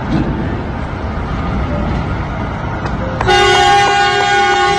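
Semi trucks' diesel engines rumbling, then about three seconds in a truck air horn sounds one long, loud blast, a chord of several pitches held to the end.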